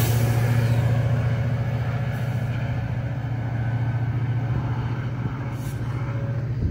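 GO Transit MP40PH-3C diesel locomotive running with a steady low drone as the train pulls away, slowly growing fainter.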